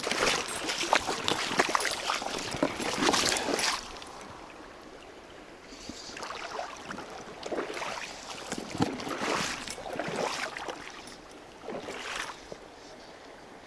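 Fly-fishing tackle handled over a flowing river: a dense run of clicks and rustles for the first four seconds, then short swishing bursts every second or two as fly line is pulled from the reel and worked out for the cast.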